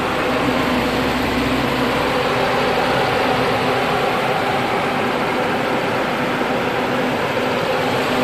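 Citroën C4 Grand Picasso 1.8 four-cylinder petrol engine idling steadily, heard close up from the open engine bay.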